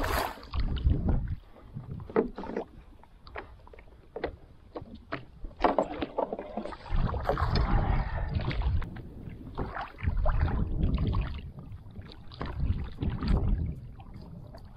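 Water lapping and sloshing against a fishing paddleboard, with repeated gusts of wind rumbling on the microphone and many small scattered clicks.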